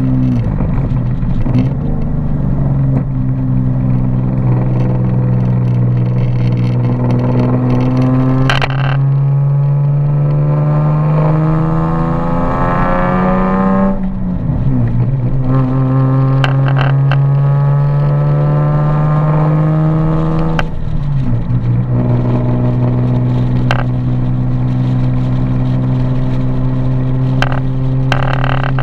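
Nissan 370Z's 3.7-litre V6 and aftermarket exhaust under way. The engine note climbs through the gears mid-way, drops abruptly at each shift, then settles into a steady cruise. A few short sharp clicks and rattles sound over it, the rattle the owner is trying to locate.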